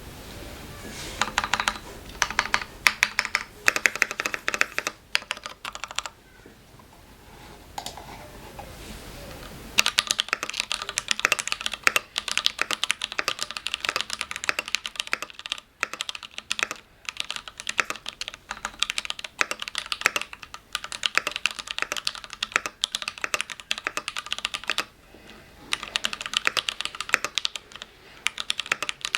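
Typing on a Keychron Q3 mechanical keyboard with brown (tactile) switches. A few bursts of keystrokes, a pause of about four seconds, then a long run of fast, steady typing with one short break before a last burst.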